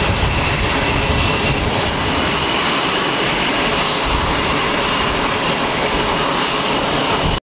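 The twin General Electric F414 turbofans of an F/A-18 Super Hornet-family jet run as it taxis on a carrier flight deck. They make a loud, steady rush with a faint high whine, and the sound cuts off suddenly near the end.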